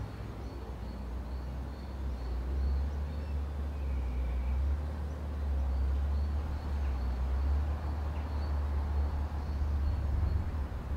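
Outdoor ambience: a steady, uneven low rumble under a light hiss, with a faint high ticking that repeats a few times a second.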